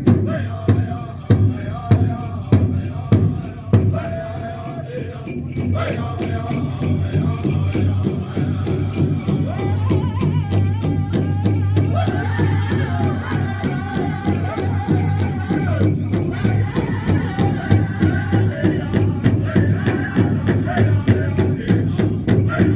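Powwow drum group: a large drum beaten in heavy, spaced strokes for the first few seconds, then a quicker, steady beat, under high-pitched group singing.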